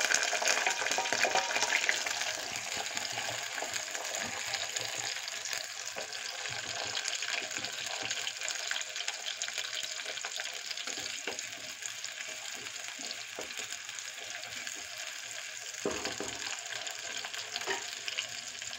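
Sliced shallots and green chillies sizzling in hot groundnut oil in a clay pot, loudest in the first couple of seconds just after they go in, then a steady sizzle. A wooden spatula stirs them with light knocks and scrapes against the pot.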